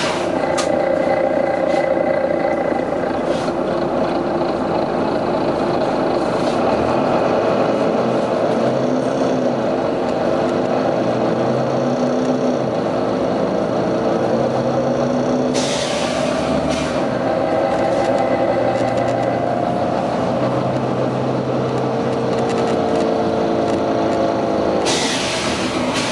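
Volvo B9TL double-decker bus engine running under way, its pitch rising and falling as it pulls away and changes gear. Short bursts of air hiss come about sixteen seconds in and again near the end.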